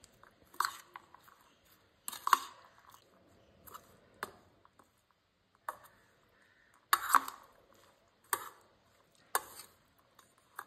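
A metal spoon stirring a wet mix of raw prawns, chopped onion, tomato and spice powders in a stainless steel bowl: irregular scraping clinks against the bowl, one every second or two.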